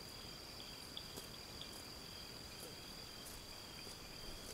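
Night insects trilling faintly: one steady high trill with a few short chirps over it, and a couple of faint ticks.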